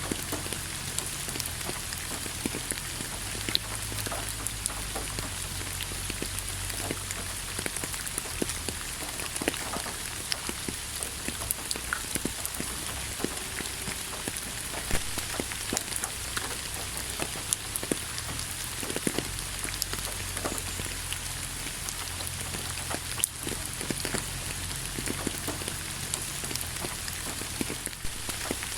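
Steady rain falling, with many individual drops striking close by as sharp ticks over an even hiss.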